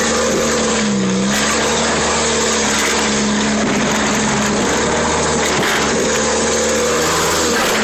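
Car engine revving under load, its pitch dipping about a second in and climbing again, then rising and falling with the throttle. Over it is a loud, steady rushing noise.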